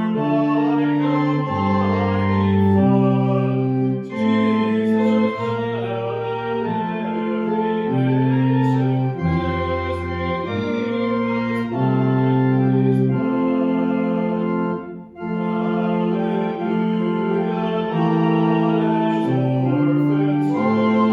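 Organ playing a hymn tune in held chords that change every second or so, with a brief pause between phrases about fifteen seconds in.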